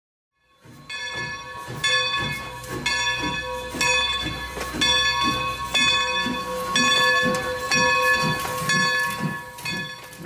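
Steam locomotive bell ringing, struck about once a second with a lingering ring, over the hiss of steam and low, regular exhaust chuffs from the engine.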